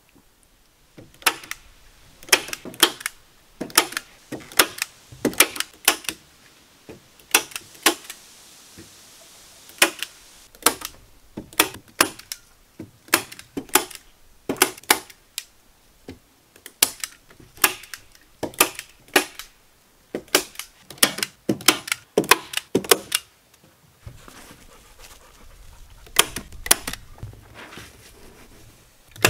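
Hand staple gun firing into a wooden frame: sharp snaps, often two or three in quick succession, in short runs with pauses between, as plastic sheeting is stapled on.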